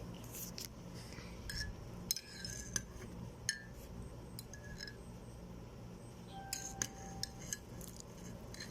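Metal spoon stirring a drink in a glass, clinking irregularly against the side, many of the clinks ringing briefly.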